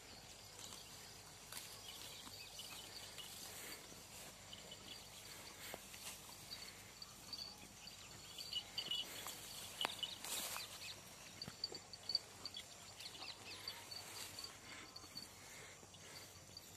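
Faint outdoor ambience: insects chirping steadily in a rapid, repeated high pitch, with rustling and a few scattered clicks, busier for a few seconds past the middle.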